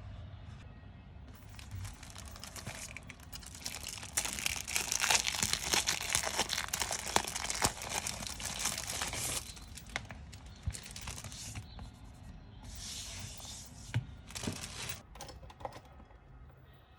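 Packaging crinkling and tearing in a long stretch of several seconds, then a shorter burst about two thirds of the way in, with a few sharp clicks between.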